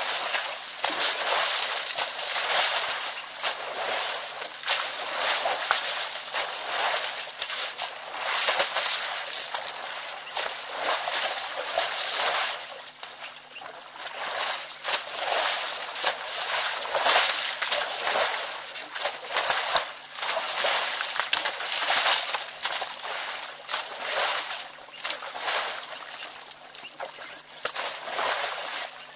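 Mud and water sloshing and splashing irregularly as an African elephant works its trunk and feet in a muddy waterhole wallow.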